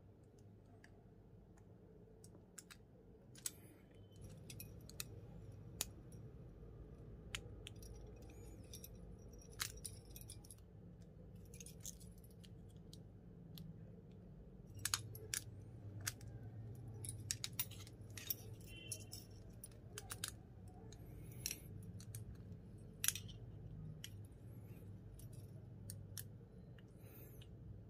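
Faint, irregular metallic clicks and clinks of an Allen key and a spanner working against the bolts, nuts and aluminium gantry plate as the V-wheel mountings are tightened, heard over a faint low hum.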